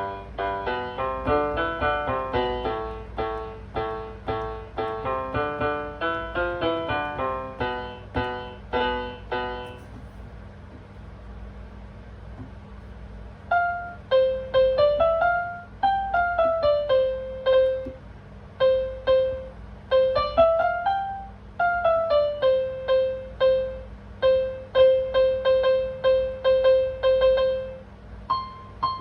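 Piano played at a beginner's level: about ten seconds of chords and broken-chord patterns, a pause of about three seconds, then quick scale runs down and up that settle on one repeated note. A faint steady hum sits underneath.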